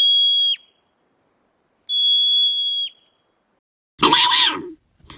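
Two long, steady, high-pitched whistled animal calls about two seconds apart, each ending in a quick downward drop in pitch. About four seconds in, a different harsh, raspy animal call follows.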